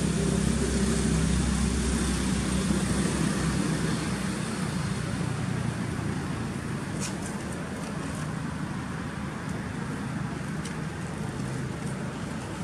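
Steady low rumble with a hiss over it, strongest over the first few seconds and then slowly easing, with a few faint clicks about seven seconds in.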